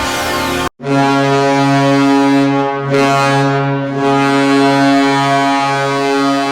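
Hockey arena goal horn blowing one long, deep, steady blast. It starts after a brief silent cut just under a second in, which ends the tail of a previous horn.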